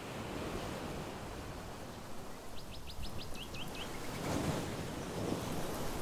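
Sea waves washing on a rocky shore with some wind, swelling a little past halfway. Near the middle a songbird gives a short phrase of about six quick high chirps ending in a few falling notes.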